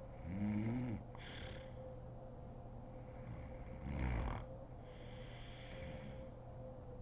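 A sleeping woman snoring: a pitched snore that rises slightly about half a second in, then a breathy exhale, and a rougher, lower snore about four seconds in, followed by another soft breath.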